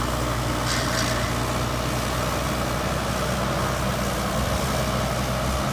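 Diesel engine of a JCB 3DX backhoe loader running steadily, with a short hiss about a second in.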